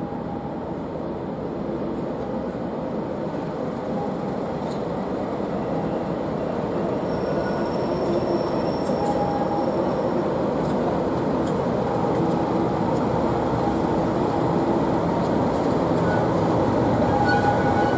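Class 37 diesel locomotive with its English Electric V12 engine running as it draws slowly into the platform at the head of a train, growing steadily louder as it approaches.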